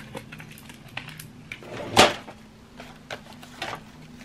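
Clear plastic drawer organizers being handled, with scattered light plastic clicks and taps and one louder knock about two seconds in.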